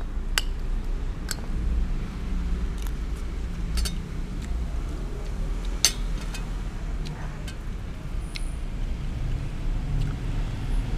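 Metal spoon clinking and scraping against a plate several times while scooping rice, the loudest clink about six seconds in, over a steady low rumble.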